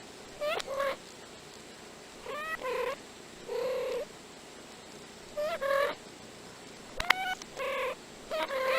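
Two house cats' chattering meows played backwards: short pitched calls, one or two at a time, with brief pauses between them.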